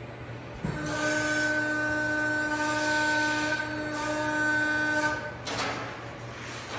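CNC press brake running through a bend stroke on a long sheet-metal part. A steady, pitched machine whine starts under a second in, holds for about four and a half seconds and stops, followed by light clattering as the part is handled.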